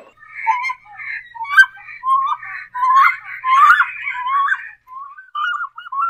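Recorded black cormorant calls played as a hunting lure: a rapid chattering run of short, rising chirps, several a second, thinning to a few fainter notes near the end.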